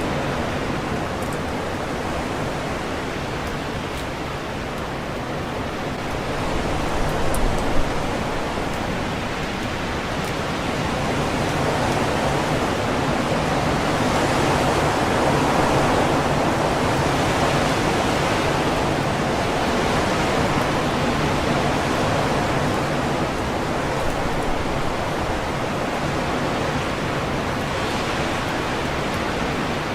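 Strong wind rushing through leafy trees, a steady noise that swells in gusts, loudest in the middle stretch, with one brief louder blast about eight seconds in.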